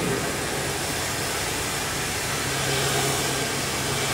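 Steady hiss of background noise, joined about two and a half seconds in by the low, even hum of a running engine.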